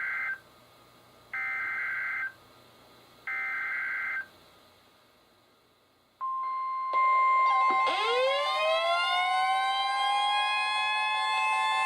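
Three short bursts of NOAA Weather Radio SAME data tones, the end-of-message signal. After a pause a steady weather radio alert tone starts, and within a second the receiving weather radios' own alarms go off: a pulsing beep and a siren that winds up in pitch and then holds.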